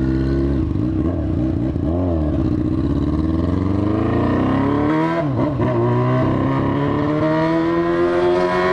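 Yamaha FZ6 motorcycle's inline-four engine accelerating under the rider, revs climbing, with a brief blip about two seconds in, a sharp drop at a gear change about five seconds in, then a long climb again. The bike runs without its catalytic converter, and the owner calls the noise loud: it "berra demais".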